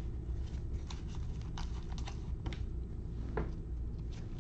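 Trading cards being handled and sorted by gloved hands: light, irregular clicks and taps as cards are squared and set down on a stack.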